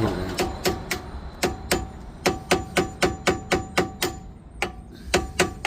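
A run of quick, light metal-on-metal taps, each with a short ring: a hammer striking a thin screwdriver to work loose a stuck pad-retaining clip or pin on a Jaguar XJ-S front brake caliper. The taps come about three to four a second through the middle and thin out near the end.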